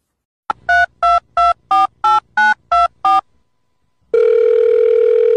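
Telephone touch-tone dialing: a click, then eight quick keypad beeps, each a two-note tone. About four seconds in, a steady ringing tone starts on the line.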